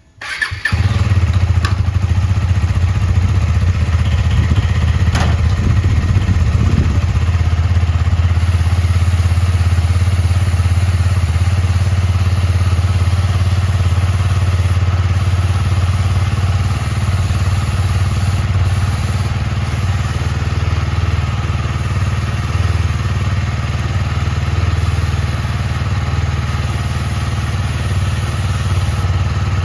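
KTM Duke 250's single-cylinder engine starting just after the beginning and then idling steadily.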